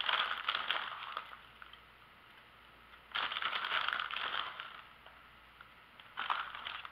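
Three bursts of crinkling and crackling, each a second or two long, as shredded cheese is pressed down onto twice-baked potato halves on a foil-lined baking sheet.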